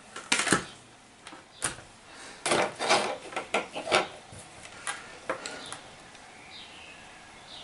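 Scattered light clicks and taps as multimeter test probes and small parts are handled and pressed against the repaired headphone wiring for a resistance check.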